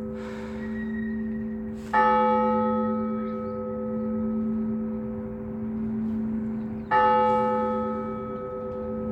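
Russian Orthodox church bell rung to call to service: two strokes about five seconds apart, each setting off a ringing chord of tones that slowly dies away over a continuous low hum from the bells.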